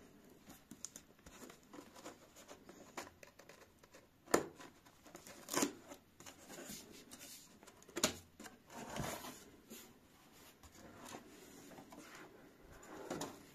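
Tape seal peeled off a cardboard box and the box's flaps pulled open: scattered scraping, tearing and rustling of cardboard with a few sharp snaps, the loudest about four and eight seconds in.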